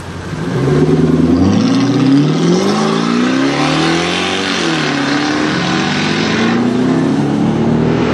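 A 1970 Mercedes 280 SE with a swapped-in V8 accelerating hard: the engine's revs climb, dip at a gear change about four seconds in, then climb again.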